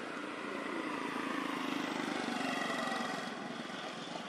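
Small motorcycle engine running, growing louder for about two seconds in the middle, then easing off.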